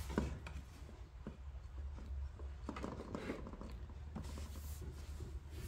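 Faint rubbing and a few light, irregular knocks from hands turning and handling a plastic-cased wall clock, over a steady low hum.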